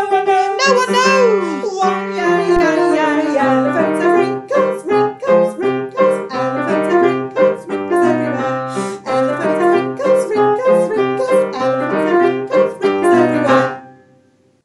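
Keyboard backing music with a steady beat and stepping runs of notes, dying away about a second before the end.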